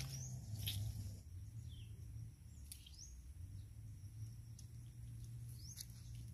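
Faint outdoor ambience: short bird chirps every second or two, some rising in pitch, over a steady low hum.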